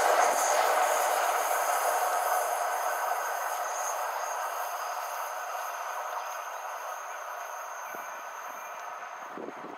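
Class 47 diesel-hauled passenger train running away round a curve, its engine and wheel noise fading steadily. A thin, steady high whine runs on above it.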